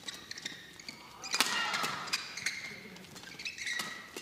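Badminton rally: sharp clicks of rackets striking the shuttlecock, mixed with the squeak of players' shoes on the court mat, with a louder burst of squeaks and noise about a second and a half in.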